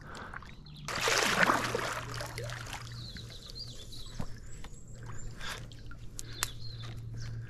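Kayak paddle pushing through shallow water and brushing against twigs. There is a splash about a second in, then scattered scrapes and snaps of branches.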